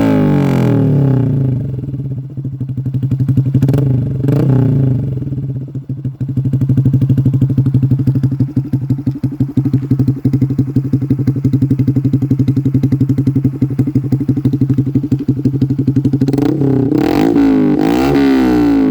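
Honda Super Cub C125's single-cylinder four-stroke engine running loud through a short aftermarket silencer: revved and blipped a couple of times, then idling with an even pulsing beat, and revved up and down again near the end.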